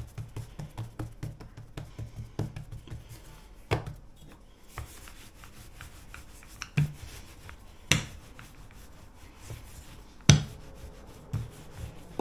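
Hand food preparation on a kitchen board: a quick run of low knocks and rubbing for the first few seconds, then scattered clicks and a few sharp knocks, the loudest about ten seconds in.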